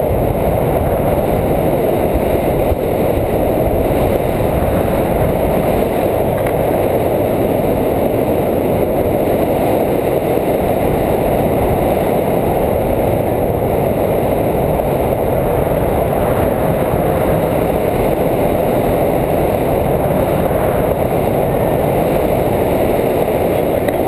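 Steady rush of wind over the camera microphone of a tandem paraglider in flight, a loud, even noise without any engine tone.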